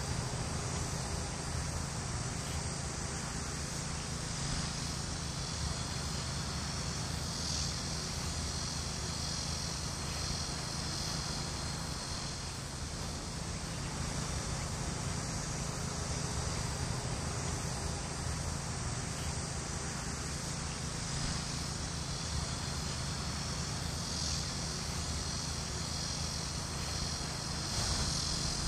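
Outdoor field ambience: a steady high chorus of insects that swells a few times, over a steady low rumble.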